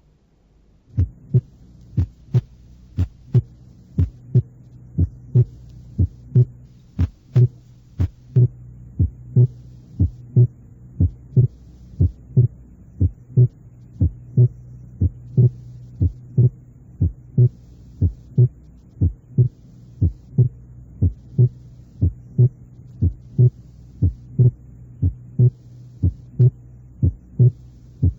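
Recorded heart sounds heard through a stethoscope, beating regularly at about one beat a second over a steady low hum. The second heart sound splits normally with inspiration: physiological splitting of S2 as the pulmonary component is delayed.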